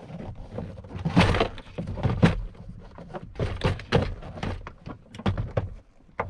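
Peugeot 407 plastic door card being pressed and knocked onto the top of the door: a run of knocks, thunks and plastic scraping as the panel is worked into place, not yet seated. The loudest knocks come about one and two seconds in.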